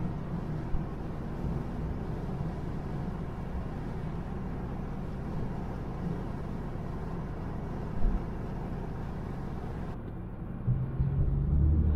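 Inside the cabin of a BMW E90 328i at highway speed: a steady rumble of engine and tyre noise, with a couple of brief knocks. Near the end the engine grows louder.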